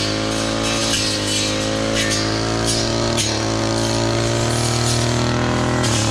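Backpack brush cutter's small petrol engine running steadily at an even, unchanging pitch.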